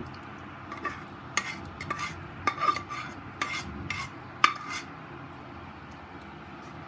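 Steel spoon scooping chickpea curry into a stainless steel bowl, scraping and clinking against the metal. About ten sharp, ringing clinks come in the first four and a half seconds, then they stop.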